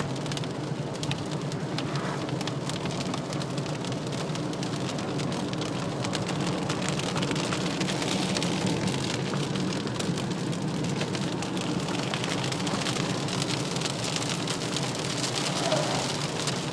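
Thunderstorm downpour pattering on a hard surface, a dense run of individual drop ticks over a steady low hum.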